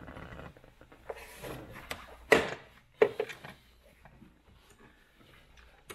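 Socket, extension and ratchet knocking and scraping against metal while being fitted to a brake master cylinder mounting nut: a few sharp clicks and knocks, the loudest about two seconds in, with rubbing between, then quieter.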